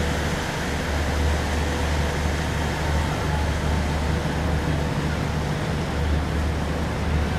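Steady low rumble of a moving ship's engines, with an even hiss of wind and water over it.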